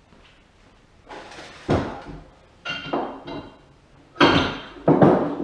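Steel parts of a JD2 Model 32 tubing bender clanking as they are handled and set down: about seven metal knocks, some with a short ring, the loudest two near the end.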